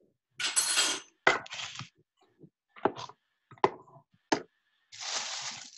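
A utensil working a skillet of pasta sauce on the stove: two short bursts of scraping and about four sharp knocks of the utensil against the pan.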